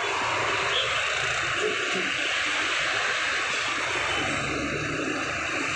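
Steady road-traffic noise of engines and tyres, with a bus's diesel engine running low underneath as it passes. The low rumble grows a little stronger near the end.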